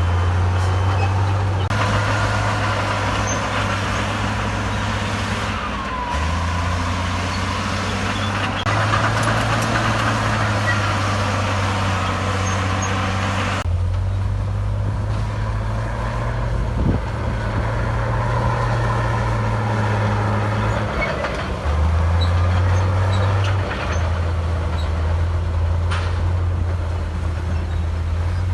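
Heavy diesel engine of earthmoving equipment running hard, its low note stepping up and down several times as the revs change, with an abrupt shift about halfway through.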